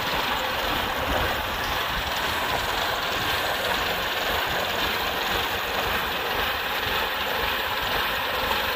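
Rice combine harvester running steadily while standing still: a dense, even engine and machinery noise that holds the same speed and level throughout.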